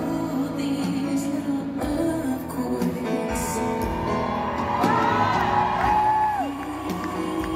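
Live music: a Bösendorfer grand piano with a woman singing. About five seconds in, her voice rises in long sliding glides up and down, the loudest moment here.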